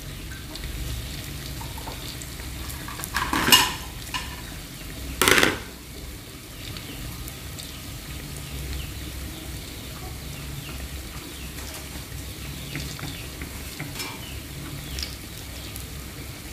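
Banana bread dough balls deep-frying in oil in a wok, a steady sizzle. A metal spatula scrapes or knocks against the wok twice, a few seconds in, the loudest sounds.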